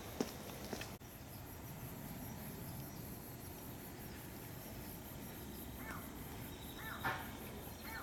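Insects chirping steadily in a fast, even high-pitched pulse. A few short bird chirps come near the end, and a couple of footsteps are heard in the first second.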